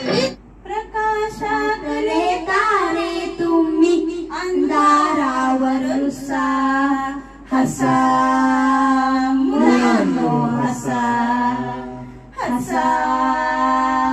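A child singing a song unaccompanied into a microphone, in phrases with long held notes.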